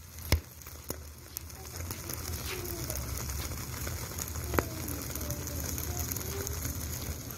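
Sauce-coated boneless chicken feet sizzling and crackling on a hot grill grate, with a few sharp pops, the loudest about a third of a second in and another a little past the middle.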